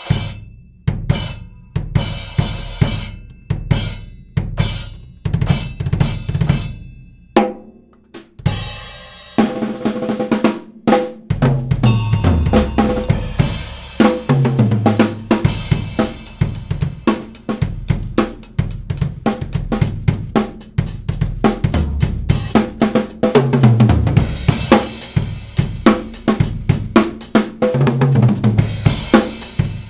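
Drum kit played to show off a Wuhan Traditional 12-inch splash cymbal. The first several seconds are single strikes with short ringing splashes, spaced about a second apart. From about ten seconds in a busy groove of snare and bass drum follows, with several falling tom fills and cymbal accents.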